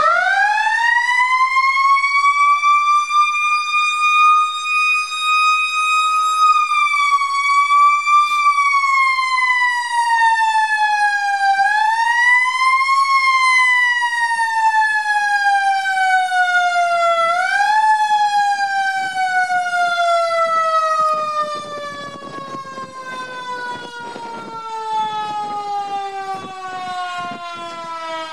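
Fire truck siren winding up quickly to a high wail, holding, then slowly winding down in pitch, swooping back up briefly three times before sliding steadily lower and quieter through the last several seconds.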